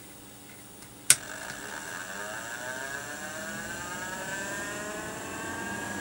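A sharp click about a second in, then a 12-volt fan motor spinning up, its whine rising steadily in pitch and beginning to level off near the end as the speed control brings it up to speed.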